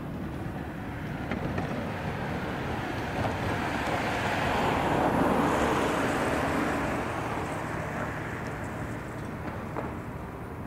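A vehicle passing by: a steady rushing noise that swells to a peak about five seconds in and then fades away.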